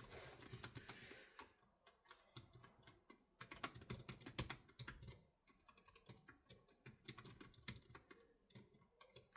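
Typing on the keys of a ProtoArc XK01 TP foldable Bluetooth keyboard: soft key clicks in quick, irregular runs with short pauses between them.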